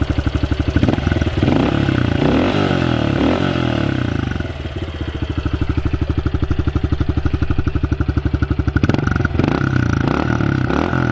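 A 2020 Honda CRF110F pit bike's small air-cooled single-cylinder four-stroke engine running at idle, with a fast, even firing beat. The sound changes abruptly about nine seconds in to a less even beat.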